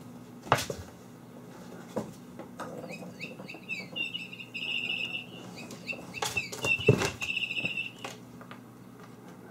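A small bird chirping and trilling in short high bursts from about three seconds in until about eight seconds in. Scattered thumps and knocks of kittens jumping and landing, the loudest about seven seconds in.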